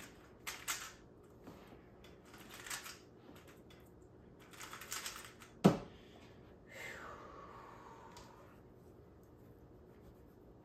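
Plastic Rubik's cube being turned by hand, in short bursts of clicking and rattling, then a single sharp knock a little past the middle as it is set down on the table. A softer sound sliding down in pitch follows for a second or so.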